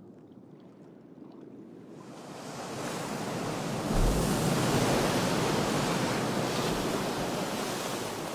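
Sea surf breaking and washing over shoreline rocks: a rushing noise that swells in about two seconds in and surges heaviest at about four seconds, then carries on steadily.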